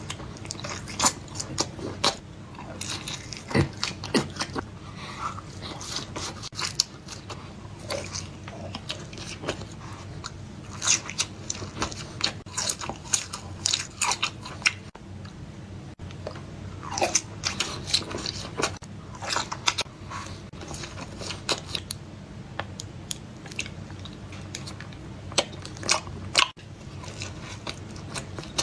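Close-miked mukbang eating: repeated crunchy bites and chewing, with many sharp irregular crackles.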